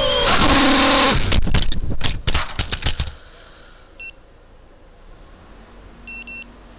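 Racing quadcopter's T-Motor 2204 2300KV brushless motors whining at high power, then the quad crashes and tumbles across concrete in a burst of rapid hits and scrapes lasting about two seconds before the motors stop. Once it lies still there is a single short electronic beep, and a pair of beeps near the end.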